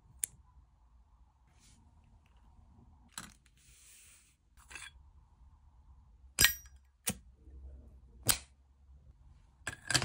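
Sharp metallic clicks and clinks as a folding pocket knife and a brass flip-top lighter are handled: a small click near the start, a brief hiss around the middle, and several louder clinks in the second half.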